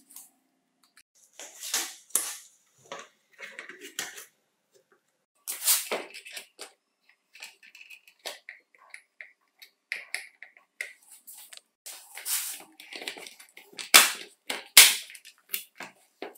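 Plastic housing of an Electrolux Ergorapido cordless vacuum being handled and pressed together: scattered clicks, scrapes and rattles, with two sharp snaps near the end as the shell halves click into place.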